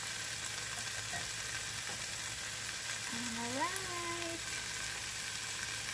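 Shrimp fry with onions and tomatoes sizzling in a non-stick frying pan, a steady hiss.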